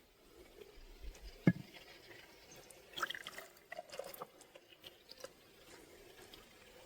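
Rhubarb lemonade concentrate being poured into a glass jar: faint liquid pouring and dripping, with one sharp knock about one and a half seconds in and a cluster of small clinks and splashes near the middle.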